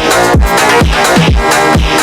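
Drift phonk music: a loud electronic beat with a booming kick that drops in pitch on every beat, about two a second, under dense layered synth tones.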